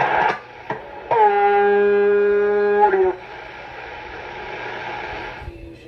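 A loud, steady, buzzy horn-like tone lasting about two seconds comes through a CB radio's speaker, then the radio hisses with open-channel static for a couple of seconds before it cuts off.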